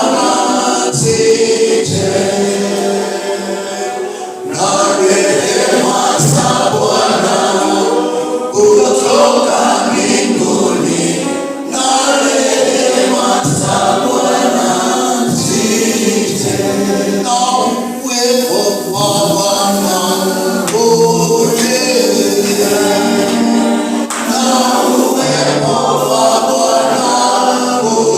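A choir singing gospel worship music.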